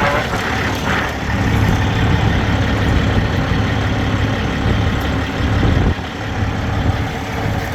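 Steady low rumble of an idling engine, dipping suddenly about six seconds in.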